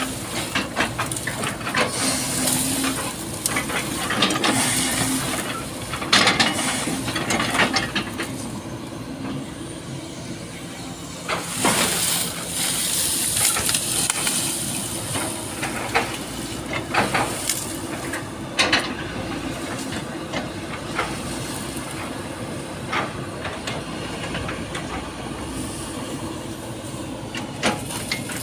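SANY SY215C hydraulic excavator running steadily as its bucket chops up a felled oil palm trunk and fronds. Repeated sharp cracks of splitting palm wood sound over the engine, with a few louder bursts of crunching as the fronds are crushed.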